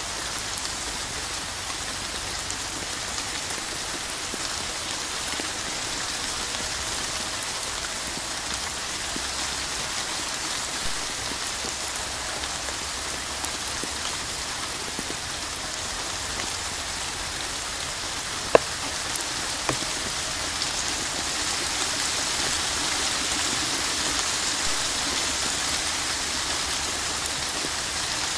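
Steady rain falling, a dense even patter that swells slightly louder near the end. Two sharp ticks about a second apart come about two-thirds of the way in.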